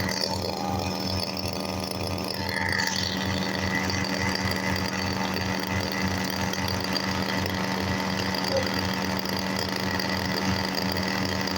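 Small lawn-mower engine running at a steady speed, with an even low pulsing.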